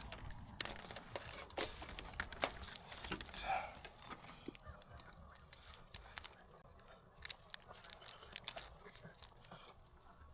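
Irregular clicks and knocks of hands handling tools and hardware, with a short squeak about three and a half seconds in.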